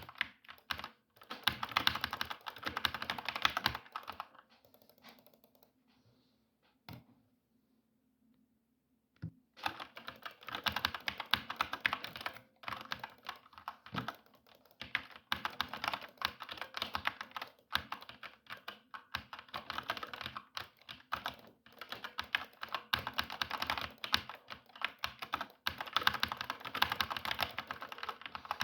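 Fast typing on a computer keyboard, a dense run of key clicks. The typing stops for about five seconds after the first four, with only a couple of stray clicks, then resumes and runs on steadily.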